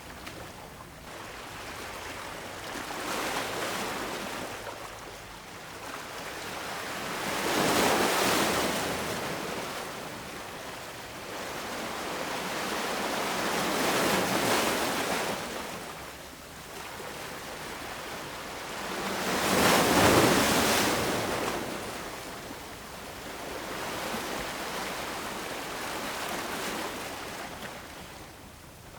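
Ocean surf on a beach: waves breaking and washing up the shore, a rushing swell every five or six seconds, with two bigger breakers about a quarter of the way in and about two thirds of the way in.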